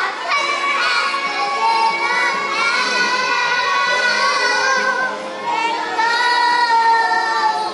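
A group of young children singing together, holding some long notes.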